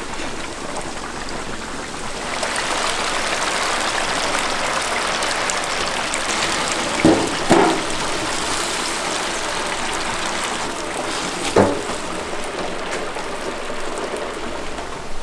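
Chicken deep-frying in hot oil: a steady sizzle that grows louder about two seconds in. A few short knocks cut through it, two close together about halfway and one more a few seconds later.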